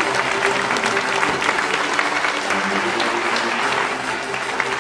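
A large audience applauding, a dense continuous patter of claps, with music playing underneath.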